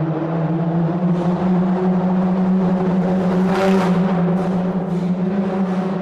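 Car driving through a road tunnel: a loud, steady drone of engine and tyres with a low booming hum, and several short hissing rushes in the second half.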